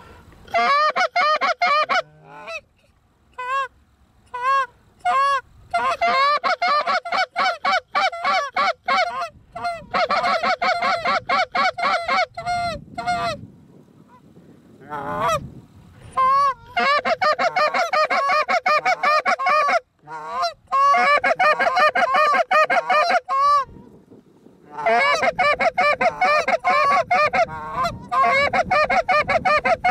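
Hand-blown Canada goose calls, loud and close, run together in fast strings of clucks and honks in several long bursts with short breaks: hunters calling to Canada geese coming in to the decoys.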